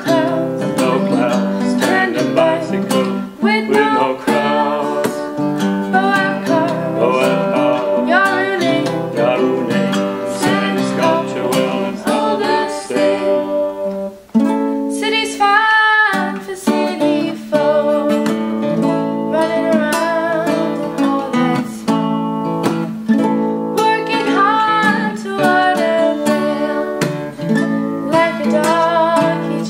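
Acoustic guitar and ukulele strumming and picking a song together, with a brief drop about halfway through.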